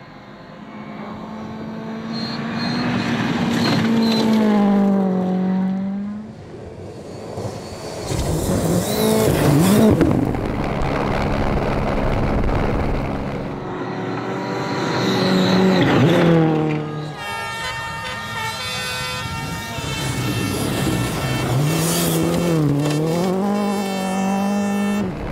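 Competition rally cars going by at full throttle several times, engines revving high. The pitch drops sharply as each one passes, and dips and climbs again with gear changes.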